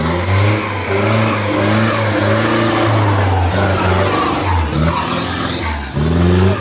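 Jeep engine revving hard under load as it climbs a steep muddy slope, the revs rising and falling, dropping briefly twice near the end before surging again.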